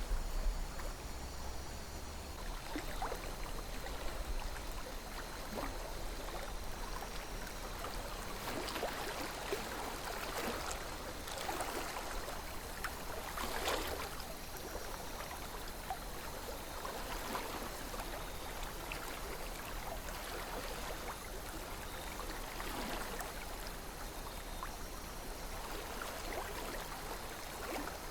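River water flowing steadily, with gurgles and small splashes that come and go.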